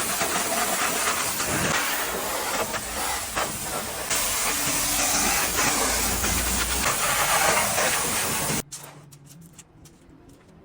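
A steady, loud hissing jet that cuts off suddenly about three-quarters of the way through.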